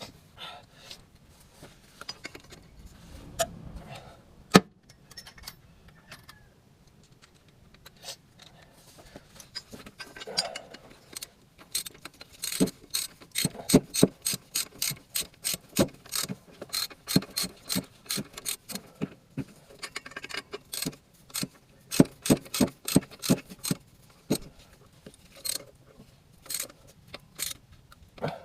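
Hand ratchet wrench clicking as fasteners are turned, with scattered clicks and a single knock at first, then long runs of rapid clicks from about halfway in.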